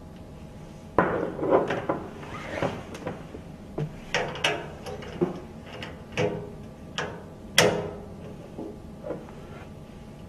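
A dozen or so irregular clicks and knocks of a cable plug being pushed onto and fastened to a round connector on a spectrophotometer's metal rear panel. The cable is the water trap's liquid-level sensor lead. The loudest click comes near the end.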